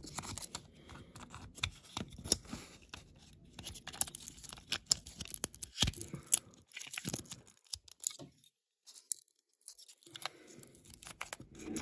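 A red plastic interior tub being pushed and worked into a diecast toy car's metal body: irregular clicks, creaks and scrapes of plastic against metal close to the microphone. It drops out for about a second and a half about two-thirds of the way through.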